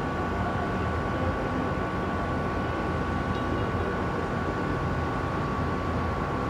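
Steady low rumble of city background noise, with two faint steady high tones above it.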